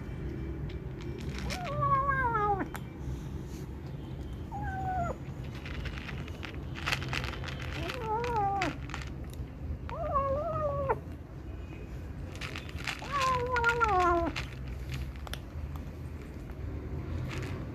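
A cat making drawn-out, wavering meows while it eats, five calls each sliding down in pitch, with short clicks between them.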